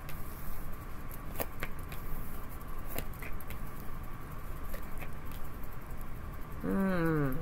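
Tarot cards being dealt and laid down on a cloth-covered table: scattered soft taps and slides of the cards, with a few sharp clicks. Near the end comes a brief hum from a voice, falling in pitch.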